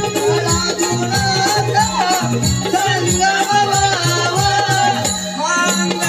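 Konkani Naman folk music: a steady drum rhythm with jingling percussion and a bending melody line over it.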